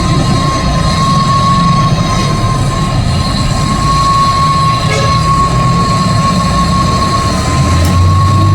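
A machine running loud and steady: a low rumble under a constant high whine.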